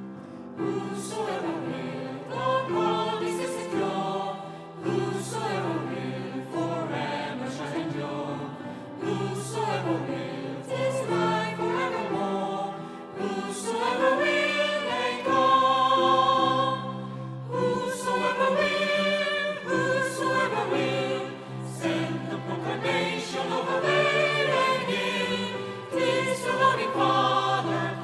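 Choir singing a hymn in several parts over sustained low accompaniment notes.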